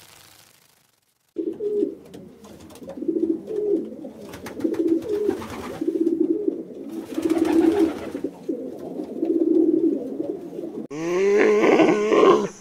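Pigeon cooing over and over, a run of low coos in short phrases. Near the end a louder, higher animal call with a bending pitch cuts in.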